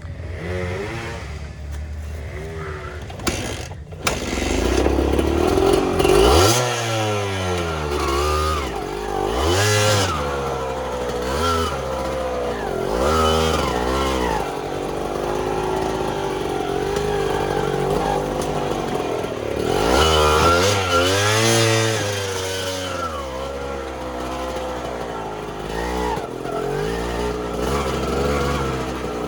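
Trail motorcycle engine revving up and down over and over as it is ridden, its pitch climbing and dropping every second or two. Two sharp knocks come in about four seconds in.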